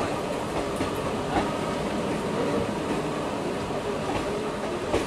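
Running noise of a moving Indian Railways train heard at an open coach door: steady wheel-on-rail rumble with a few sharp clacks as the wheels cross rail joints. An EMU local train rushes past close alongside in the first seconds.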